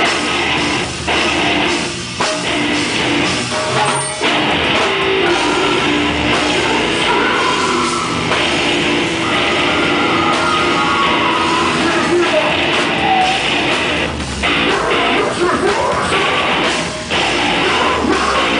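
A deathcore band playing live and loud: distorted electric guitars and a drum kit, with a vocalist singing into a microphone.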